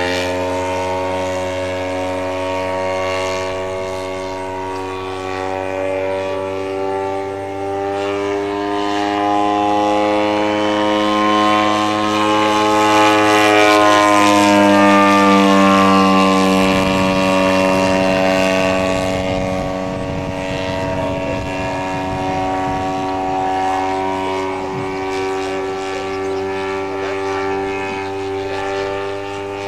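Engine and propeller of a half-scale radio-controlled Fokker D.VI biplane in flight, a steady drone. Its pitch and loudness climb slowly to a peak about halfway through, then the pitch drops as the plane flies by.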